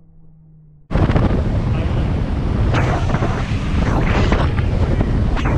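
Soft music cuts off abruptly about a second in, replaced by loud wind buffeting the microphone and water rushing past a Haynie 23 SuperCat bay boat running at speed, with a few sharper gusts or splashes.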